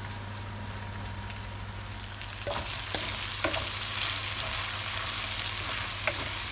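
Spinach pasta sizzling in a pot while a wooden spoon stirs and tosses it. The hiss grows louder about two and a half seconds in, with scattered scrapes and knocks of the spoon against the pot.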